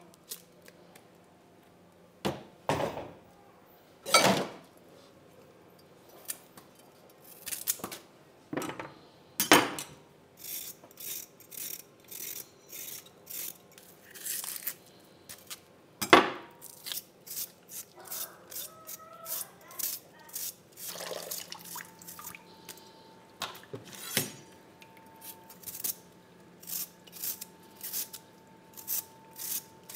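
A few knocks and clinks of kitchen bowls and utensils, then a small knife scraping steadily as a vegetable is peeled by hand, in short, even strokes that settle at about two a second.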